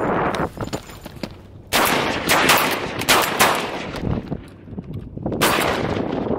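Several shotgun blasts from more than one hunter, a quick volley starting about two seconds in and another shot near the end, each with a short echoing tail.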